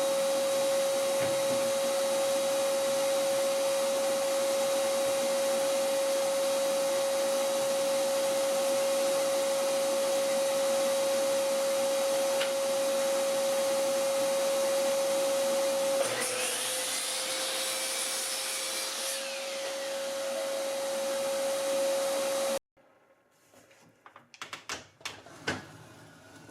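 Electric power-tool motor running with a steady high whine over a loud hiss. About sixteen seconds in, its pitch drops a little and sweeping tones come and go for a few seconds, as if under load. Near the end it cuts off abruptly, followed by a few faint clicks.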